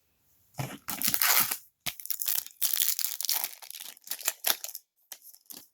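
Foil trading-card pack wrapper being torn open and crinkled, a run of rustling, crackling bursts lasting about four seconds.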